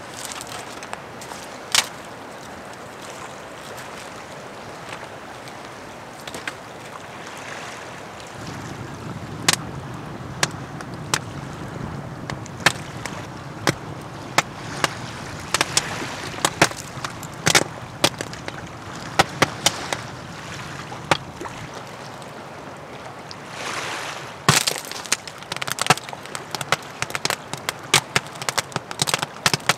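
Clay tiles cracking and bursting with sharp pops inside a wood-fired stone-and-clay kiln, over the steady rush and crackle of the fire. The pops come more often from about a third of the way in and crowd together near the end: the tiles still held moisture and are exploding in the heat.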